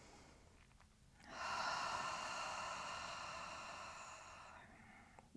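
A woman's long cleansing exhale out through the mouth, like a sigh, starting about a second in and fading away over about three seconds.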